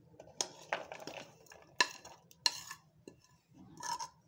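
Metal cutlery scraping chopped vegetables off a plate into a bowl, with a handful of sharp clinks of metal on the plate and bowl and soft scraping between.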